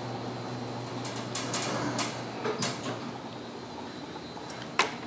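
Baxter and Sons elevator's sliding doors closing, with a run of clicks and rattles over the first few seconds, then one sharp click near the end.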